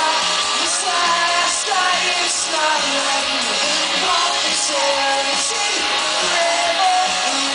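Live pop-rock band playing on stage, heard from the audience: a sung melody over electric guitars and drums keeping a steady beat.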